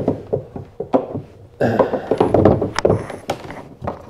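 Hands handling cable and fittings against a plastic kayak hull: scattered clicks, knocks and rubbing, busiest in the middle.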